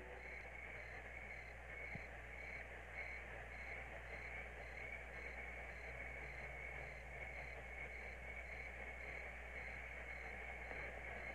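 Crickets chirping faintly in a steady, even rhythm of about two chirps a second.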